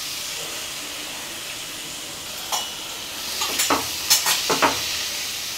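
Minced mutton sizzling in a little oil in a nonstick frying pan, a steady hiss. From about halfway, a wooden spatula scrapes and knocks against the pan in several quick strokes as the mince is stirred.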